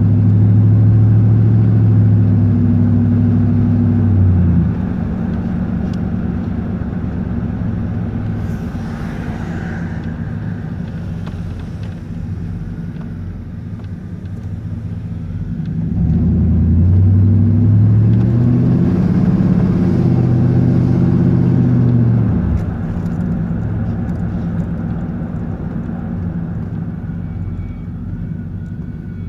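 A 1990 Chevy K1500's 5.7L 350 V8 exhaust through a muffler with no catalytic converter, heard from inside the cab while driving. A loud, steady drone drops to a quieter rumble after about four seconds. The pitch climbs back to a loud drone about sixteen seconds in, then eases off again a few seconds later.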